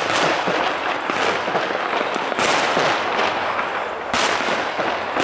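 Aerial fireworks display: shells bursting over a continuous dense crackle, with sharp bangs right at the start, about two and a half seconds in, and a little after four seconds.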